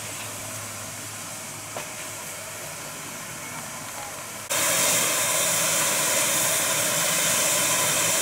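Steam hissing steadily from a Hunslet Austerity 0-6-0 saddle-tank steam locomotive standing in steam, with steam escaping low at the front by the cylinders. About halfway through, a much louder, brighter steady hiss starts abruptly.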